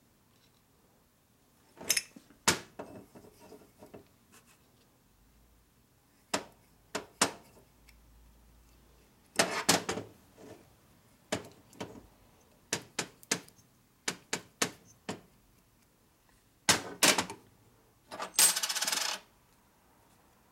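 Metal motorcycle transmission parts clinking and clattering as they are picked up, turned and set down on a steel workbench: a series of sharp clinks and knocks in irregular clusters, with a longer metallic rattle lasting about a second near the end.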